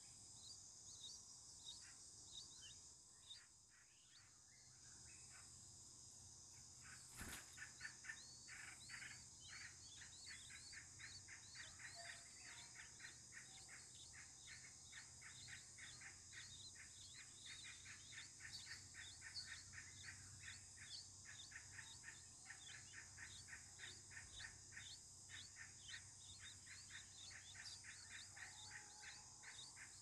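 Nestling songbirds begging: faint, rapid, short chirps repeated several times a second, starting about seven seconds in as the parent arrives to feed them. A steady high insect buzz runs underneath.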